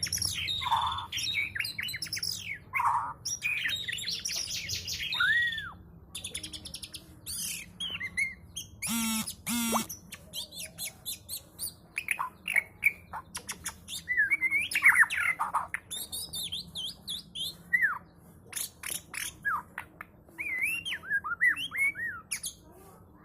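White-rumped shama (murai batu) singing a long, varied song of whistled glides, quick trills and chips, broken by short pauses, with a buzzy rattling phrase about nine seconds in.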